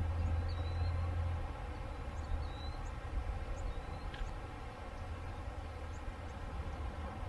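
Small birds giving short, high chirps several times over a steady low rumble, which is louder for the first second or so.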